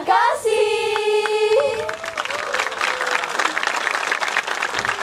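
A group of young women's voices sings a held final note together. About two seconds in, the audience breaks into steady applause.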